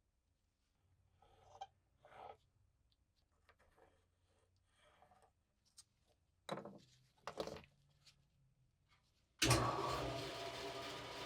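Light bench handling: faint clicks and scrapes and two sharper knocks, then a small high-speed power tool switches on near the end and runs steadily.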